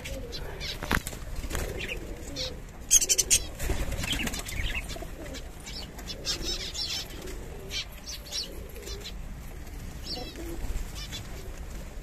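A mixed loft of pigeons and small cage birds: wings flapping in short bursts, scattered high chirps from the finches and budgies, and faint low pigeon coos. The busiest chirping comes about three seconds in.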